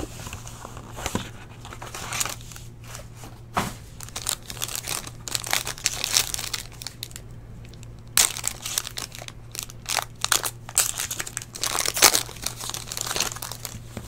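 Crinkling and crackling of packaging being handled as a sealed trading-card box is opened and its foil-wrapped pack taken out. It comes in irregular bursts with sharp clicks, busiest in the second half.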